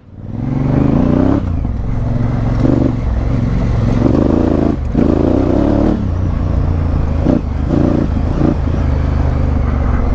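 Honda Africa Twin CRF1000L's parallel-twin engine pulling away and accelerating, revving up and dropping back several times as it shifts up through the gears.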